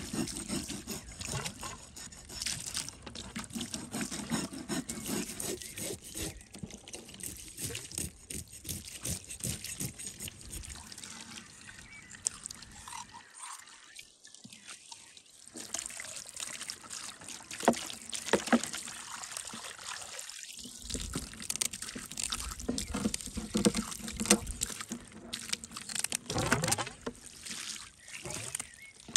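Water running from a garden hose and splashing onto a wooden board as trout are cleaned under it, with sharp clicks and scrapes from a knife and scissors working the fish.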